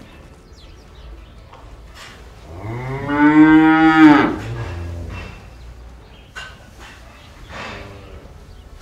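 Cow mooing: one loud, drawn-out moo of about two seconds that rises in pitch, holds, then falls away.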